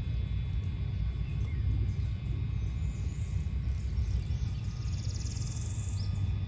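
Outdoor ambience: a steady low rumble with faint bird chirps, and a short buzzy rising call about five seconds in.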